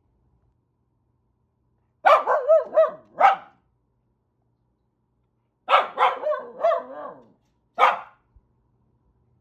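Corgi giving alarm barks at cranes and geese: a quick volley of about five barks two seconds in, another volley of several barks about six seconds in, then a single bark.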